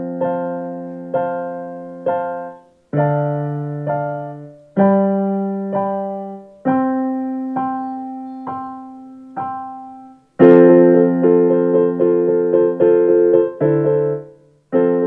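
Electronic keyboard played solo in a piano voice. A slow piece of sustained chords is struck again in a steady pulse, in short phrases with brief breaks between them. It grows louder and fuller about ten seconds in.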